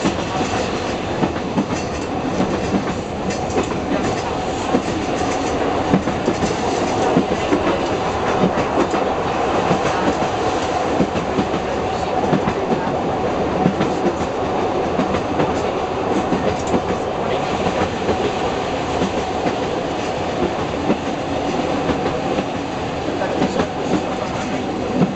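Diesel railcar on metre-gauge track, heard from inside the driver's cab while running at speed: steady running noise with the clickety-clack of the wheels over the rail and a steady hum.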